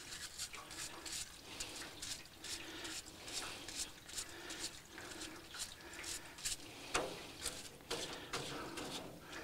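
Faint scrubbing of a parts-washer flow-through brush on a plastic wheel hub, with diesel cleaner trickling over it, broken by scattered small clicks and taps of the part being handled.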